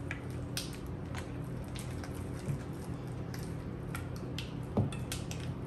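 Wooden spoon stirring soft cream cheese frosting in a ceramic bowl: faint squishing with scattered light clicks of the spoon against the bowl, over a steady low hum.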